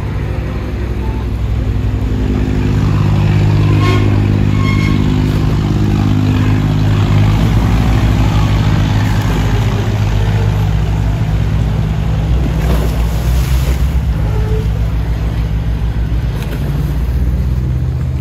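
A boat's engine running nearby with a steady low drone, its pitch shifting slightly in the first few seconds.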